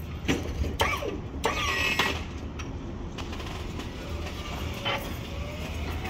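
Car engine idling, a steady low hum heard inside the cabin, with a few light clicks and rustles in the first two seconds.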